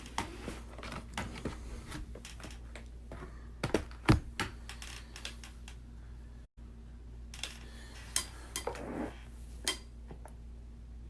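Scattered clicks, taps and light clatter of things being handled on a tabletop, with one louder knock about four seconds in, over a low steady hum. The sound drops out completely for an instant about halfway through.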